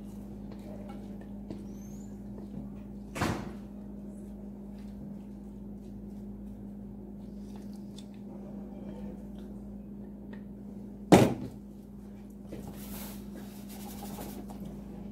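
Two sharp knocks, one about three seconds in and a louder one about eleven seconds in, over a steady low hum.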